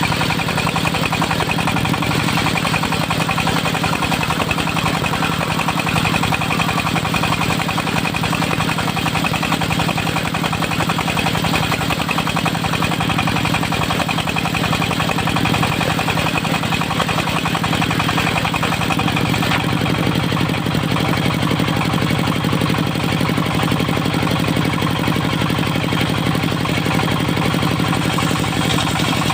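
Diesel engine of a portable circular-saw sawmill running steadily, its pitch dropping slightly about two-thirds of the way through.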